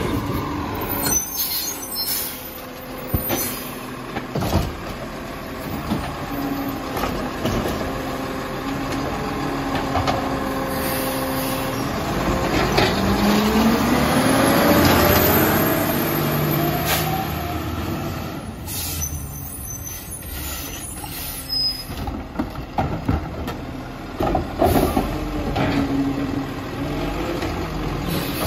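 Diesel engine of a CCC garbage truck with a Labrie Expert automated side loader running, its pitch rising over a few seconds in the middle. Air brake hisses and sharp clunks come at the start and again in the second half.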